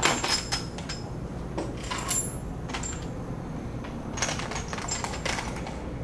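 Small metal bolts and nuts clinking against each other and a plastic box as they are picked out and handled: irregular light metallic clicks in clusters, at the start, about two seconds in and again around four to five seconds in.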